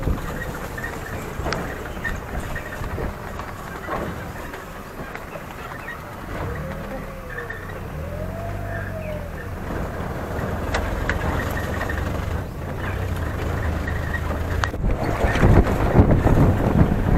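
Safari jeep's engine running as it drives along a rough forest dirt track, with the engine note swelling twice midway. Jolts and rattles from the bumpy track grow louder near the end.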